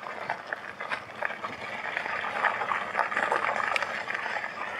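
E-bike tyres rolling over loose gravel on a downhill, a steady crunching crackle of small stones popping under the wheels.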